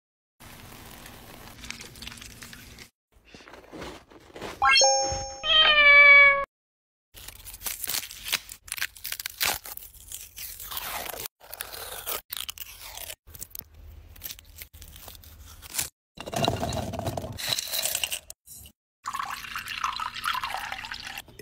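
A cat meows once, about five seconds in. Then come dry, papery crackles and clicks of garlic skin being peeled, and near the end liquid is poured into a glass jar.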